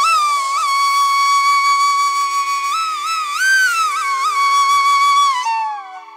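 Background music: a flute holds one long note, bending up in a few ornaments midway, over a steady drone, and fades away near the end.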